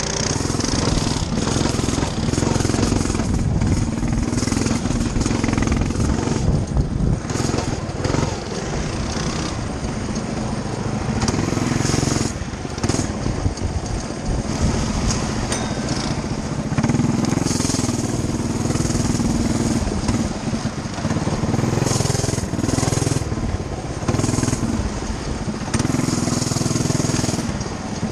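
Coleman BT200X mini bike's small single-cylinder four-stroke engine running as it is ridden over a rough dirt trail. The engine note rises and falls with the throttle, with another mini bike's engine running just ahead.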